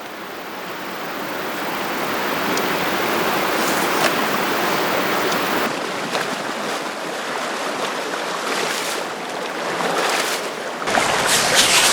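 Steady rushing of flowing water, fading in over the first couple of seconds and growing a little louder near the end.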